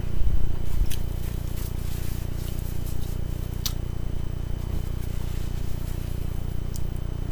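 Eating sounds: a few sharp mouth clicks as food is bitten and chewed, over a steady low hum, with a few thumps in the first second.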